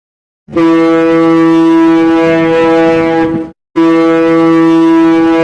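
Ship's horn sounding two long, steady blasts at one unchanging pitch, the first starting about half a second in and the second following a brief gap a little under four seconds in.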